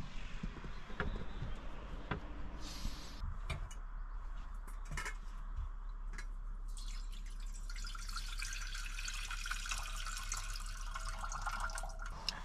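A few light clicks and knocks, then from about seven seconds in water running steadily from a tap.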